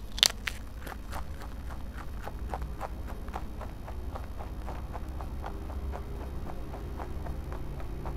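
Rabbit eating a chip: one sharp crunch as it bites off a piece, then rapid, even chewing crunches, about three to four a second.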